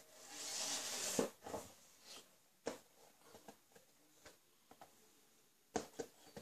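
Handling noise: a rustling swell in the first second, then a few scattered light clicks and taps.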